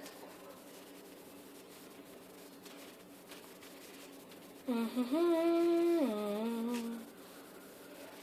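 A voice hums a short tune of a few held notes, lasting about two seconds, starting around the middle. The rest is quiet room tone.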